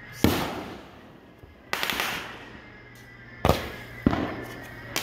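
Aerial fireworks exploding: about five sharp bangs at uneven intervals, each fading away over about half a second.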